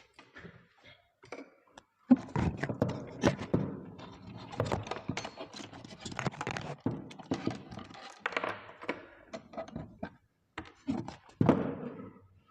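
A quick run of close knocks, clicks and thunks, like parts or tools being handled on a bench, with a short pause before a last cluster near the end.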